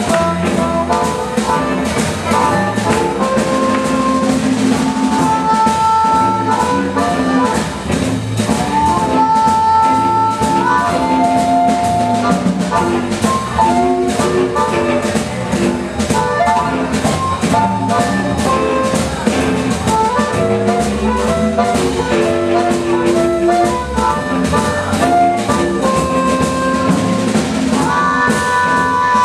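Blues band playing: drum kit keeping the beat under a lead instrument playing a melody of long held notes.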